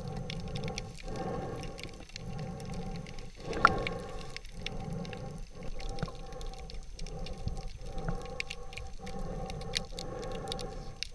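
Muffled underwater sound heard through an action camera's waterproof housing: a steady low rumble and hum with scattered faint crackling clicks, broken by brief dropouts about once a second. One sharp knock stands out a little under four seconds in.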